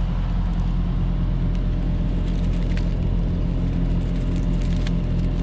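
Trane XR heat pump outdoor unit running with a steady electrical hum while its condenser fan turns. The compressor is trying and failing to start because its capacitor is bulged and bad.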